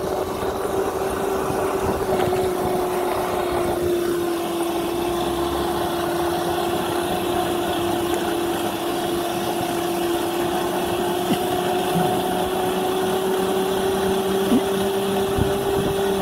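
Battery-powered electric motorcycle running on Makita tool batteries, its motor whining at a nearly steady pitch while riding, sagging slightly in pitch midway and rising again, over a haze of wind and road noise.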